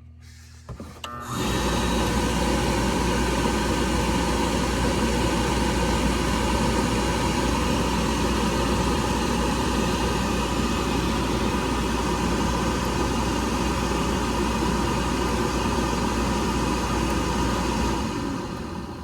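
Oil burner motor and blower running steadily, started about a second in and shutting down near the end, while the fuel pump is run to check the oil flow.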